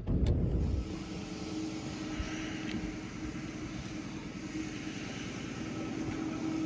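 A 2013 Honda Civic LX's 1.8-litre four-cylinder engine starts with a brief loud crank-and-catch, then settles into a steady idle hum.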